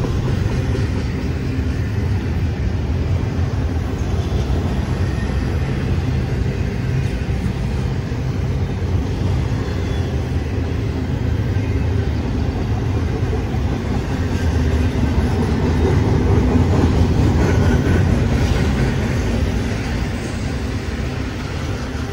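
BNSF intermodal freight train's double-stack container well cars and trailer-carrying flatcars rolling past: a steady rumble of steel wheels on rail, a little louder about two-thirds of the way through.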